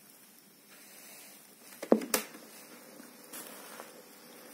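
Philips AM 174 cassette player's piano-key control pressed, giving a double mechanical clunk about two seconds in, then a faint steady hiss as the tape runs before the music starts.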